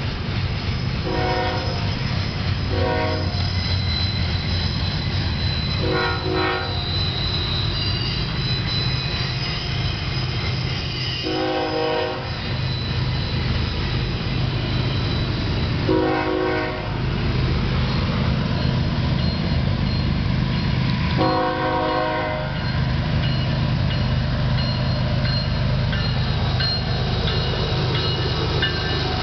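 Freight train's lead diesel locomotives approaching with a steady low engine drone, sounding a multi-note air horn six times, the later blasts longer.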